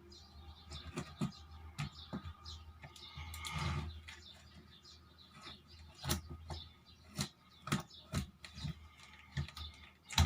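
Packaging of a new table fan being opened by hand: irregular crackles, clicks and rustles.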